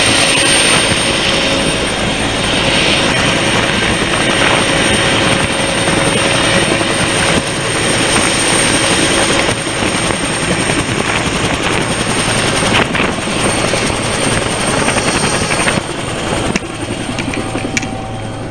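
Helicopter running at close range, its rotor and turbine making a loud, continuous noise with a steady high whine on top. It gets somewhat quieter near the end.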